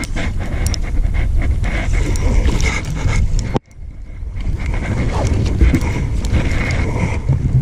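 Rumble and rustling on the camera's microphone, with scattered light clicks from the fishing reel, while a hooked fish is being reeled in from a kayak. The sound cuts out abruptly about three and a half seconds in, then the rumble resumes.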